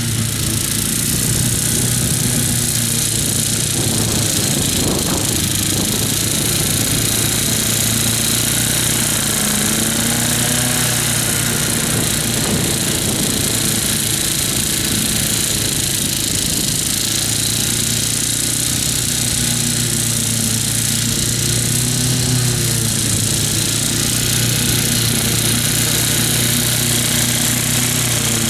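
Wolf-Garten ride-on mower running steadily under load as it cuts tall, wet grass, its engine note mixed with a strong hiss from the cutting deck. The engine pitch wavers briefly a couple of times.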